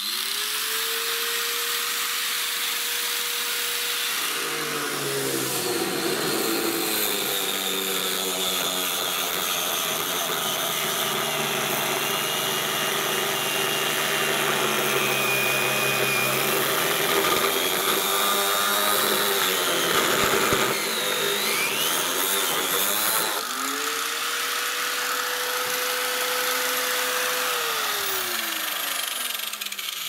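Angle grinder with a cut-off disc spinning up, then dropping in pitch as it cuts through a plastic washing-machine tub, running under load for most of the time. Near the end it runs free at full speed again and then winds down.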